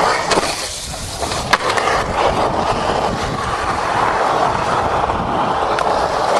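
Skateboard wheels rolling fast over rough concrete transitions, a steady gritty rolling noise, with a few sharp knocks of the board along the way.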